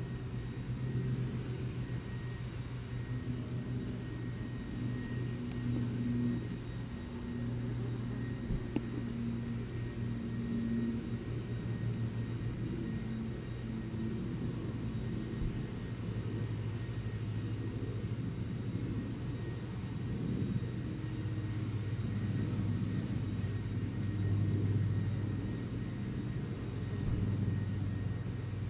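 Wasps buzzing close to the nest, a low wavering drone that swells and fades as they fly past, muffled.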